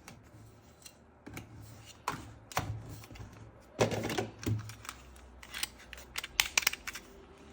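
Plastic toy parts being handled and knocked together: irregular taps and light knocks, with a quick run of clicks about two-thirds of the way in.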